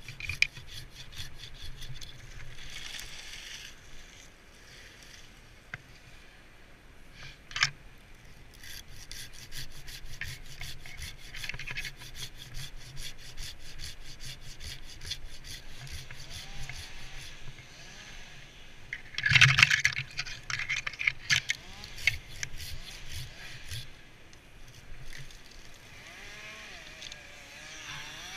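Folding pruning handsaw cutting through tree limbs in fast rasping back-and-forth strokes, with a louder burst of noise about two-thirds of the way through.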